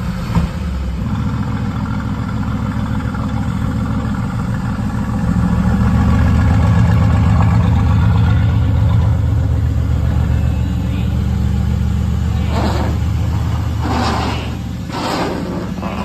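Mercedes-AMG GT S's twin-turbo 4.0-litre V8 running at idle, swelling louder for a few seconds in the middle, with a few short noises near the end.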